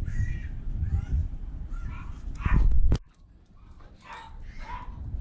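A dog giving several short calls over rustling and handling noise, with a sharp click about three seconds in, after which the background drops away suddenly.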